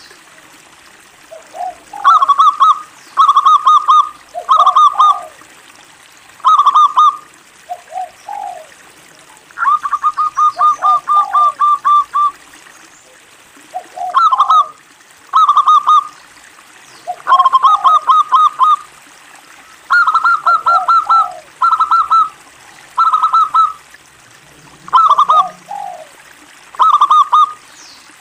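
Local zebra dove (perkutut) in full song (gacor): repeated phrases of rapid staccato cooing notes, each lasting roughly half a second to a second, with lower, rising coos between them and one longer unbroken run of notes about ten seconds in.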